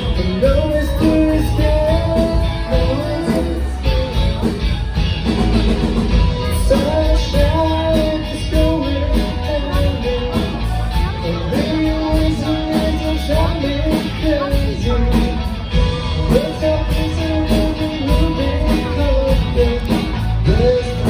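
Live rock band playing with a sung lead vocal: electric guitars, keyboard and drum kit, with a strong bass underneath, steady and loud throughout.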